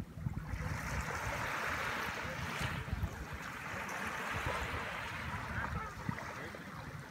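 Small, gentle waves washing up a sandy shore in calm, shallow water, a steady hiss of surf, with a low rumble of wind on the microphone underneath.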